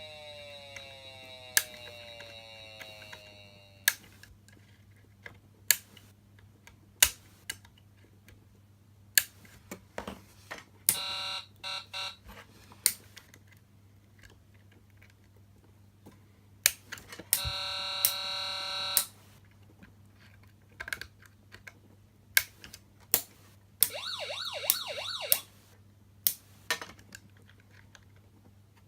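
Patlite SAP500BZ siren amplifier: a falling siren tone winds down at the start, followed by a series of sharp switch clicks. Among the clicks come short blasts of a buzzing horn tone, one broken up about 11 seconds in and a steadier one about 18 seconds in, then a brief warbling tone about 24 seconds in. A steady low hum sits underneath.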